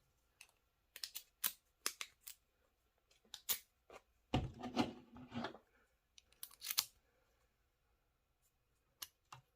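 Sharp clicks and short metal scrapes from a freshly cut key being handled, irregular, with a denser cluster about halfway through.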